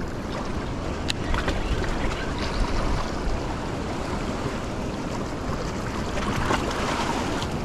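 Wind rumbling on the microphone over small waves washing against the rocks of a jetty, with a few sharp clicks.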